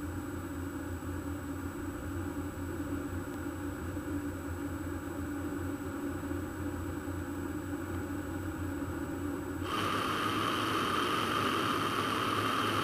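Peugeot 208 driving along a road, heard from inside the cabin as a steady low engine and road drone. About ten seconds in it switches to a louder, higher hiss of wind and tyre noise on the snowy road.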